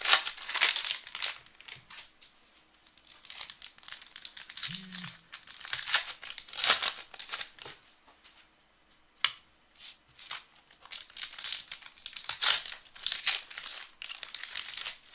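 Trading card pack wrappers crinkling and tearing open in irregular bursts, with a sharp click about nine seconds in.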